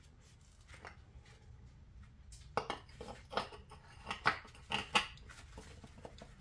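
Irregular metallic clinks and clacks of steel suspension parts and tools being handled while a car strut and its coil spring are assembled, sparse at first and coming thick from about two and a half seconds in.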